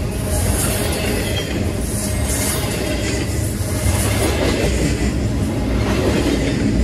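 Freight train cars rolling past at speed: a steady, loud rumble of steel wheels on rail, with brief high-pitched wheel screeches.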